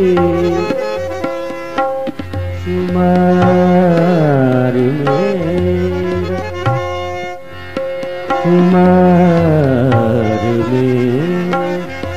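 Ghazal performance: a male voice sings two long, drawn-out phrases that slide down in pitch, over held harmonium chords. A tabla keeps time underneath with deep bass strokes and sharp strokes.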